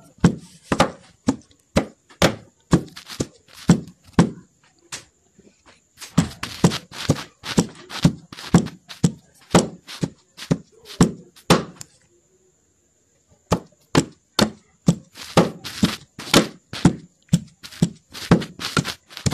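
Pestle pounding cooked horse mackerel in a wooden mortar to crumble it, about two dull thuds a second, with one short pause about twelve seconds in before the pounding resumes.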